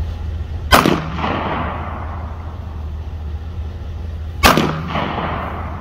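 Two gunshots fired at close range, about four seconds apart, each followed by a short echo, over a steady low hum.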